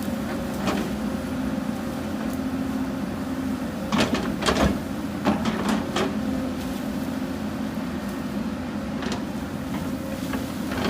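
Hyundai 220 excavator's diesel engine running steadily, with a cluster of clanks and knocks about four to six seconds in and single knocks near the start and near the end.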